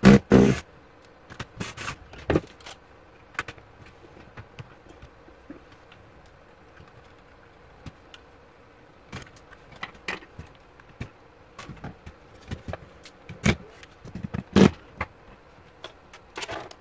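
Scattered clicks, taps and knocks of screws, screwdrivers and the plastic and metal parts of a Dell Inspiron N4030 laptop being handled while it is taken apart, with a few louder knocks near the start and about two-thirds of the way through.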